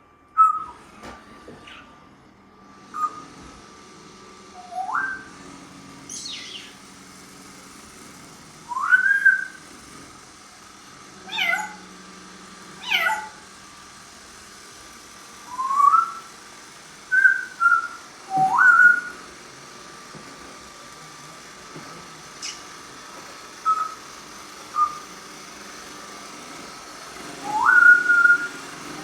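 Congo African grey parrot whistling and mimicking a cat's meow: a string of short upward-sliding whistles, with a few steeply falling meow-like calls in the middle.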